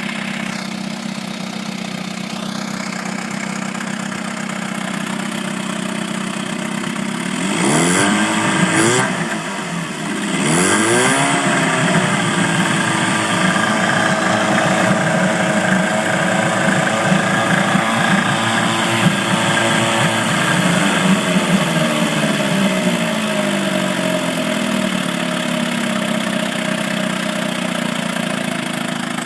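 Viking 6 hp small engine running after a carburettor rebuild: idling, blipped up twice briefly about eight seconds in, then revved up and held higher for about ten seconds before settling back down to idle.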